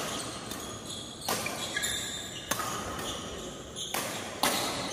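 Badminton rackets striking a shuttlecock in a doubles rally: five sharp hits, roughly one a second, with short squeaks of shoes on the court floor between them.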